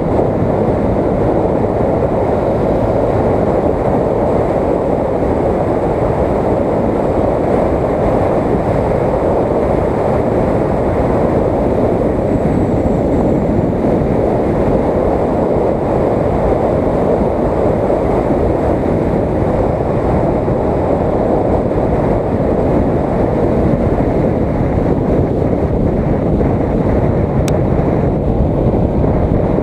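Steady wind rush over the microphone of an action camera on a moving motorcycle, with motorcycle and road noise underneath. A single sharp click near the end.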